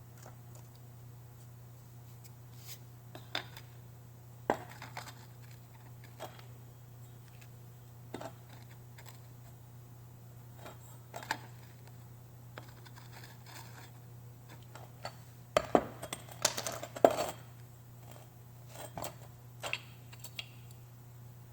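Scattered clicks and light knocks of small hard objects being handled, with a brief burst of clattering about three-quarters of the way through, over a steady low hum.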